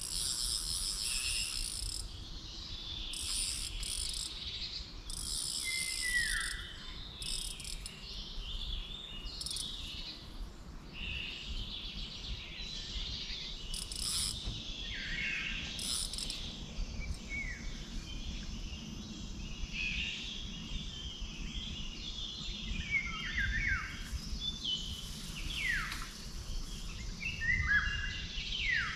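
Birds singing, with many quick downward-sliding whistled notes that grow thicker in the last third, over short spells of high insect buzzing in the first several seconds.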